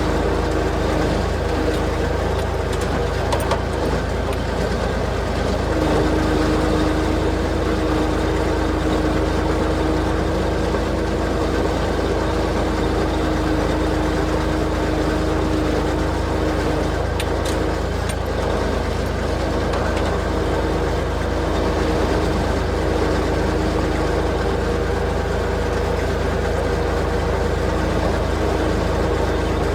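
Motor vehicle engine running steadily: a constant low drone with a steady hum above it, level throughout.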